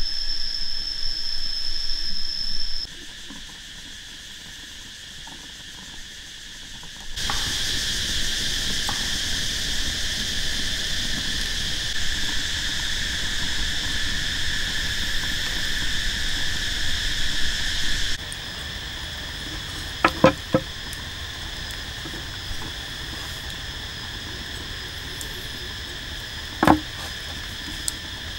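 Steady chorus of forest insects droning at several high pitches, getting louder about 7 s in and easing about 18 s in. In the second half come a few sharp knocks, two in quick succession and one more later.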